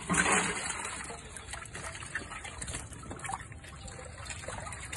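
Water trickling and splashing as live fish are lifted by hand out of a water-filled clay pot and handled in a wire basket. It is loudest at the very start.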